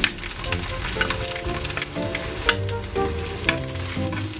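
Chopped garlic sizzling and crackling in hot oil in a frying pan, stirred with a wooden spatula.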